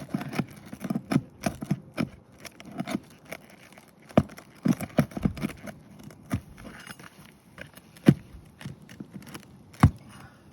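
A hand pry tool scraping, clicking and knocking under lifted asphalt roof shingles as it works toward the nails, in irregular strokes with sharper knocks about 4, 8 and 10 seconds in.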